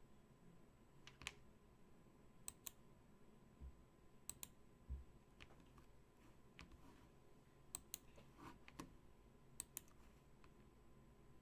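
Faint, scattered clicks from someone working at a computer, several coming in quick pairs, over quiet room tone.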